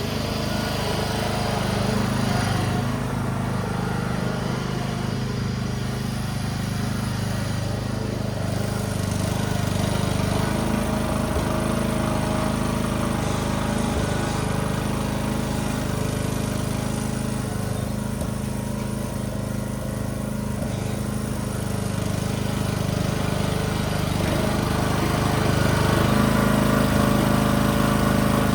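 Briggs & Stratton engine of a Yard-Man riding mower running steadily, getting louder near the end.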